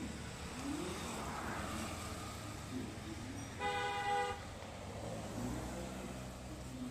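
Street traffic going by, with one vehicle horn sounding a single steady honk of under a second about halfway through.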